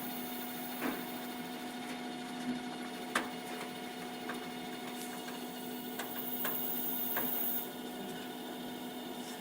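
CNC lathe with milling capability running, a steady machine hum with several constant tones and scattered sharp clicks. A brief high hiss comes in about six and a half seconds in and stops a second later.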